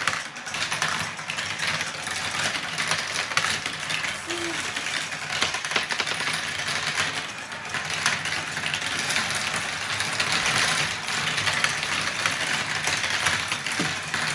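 Many marbles rolling and clattering through a plastic marble run, a dense, continuous rattle of small clicks.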